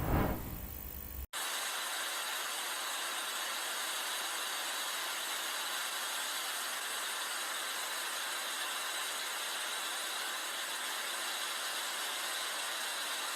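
A steady hiss that starts abruptly about a second in, just after a brief louder sound, and holds an even level.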